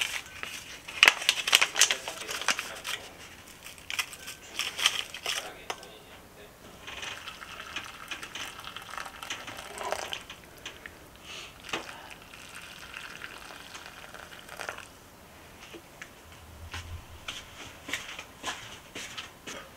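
Plastic instant miso soup packets crinkling as they are torn open and squeezed into ceramic bowls. A few seconds later hot water is poured into a bowl.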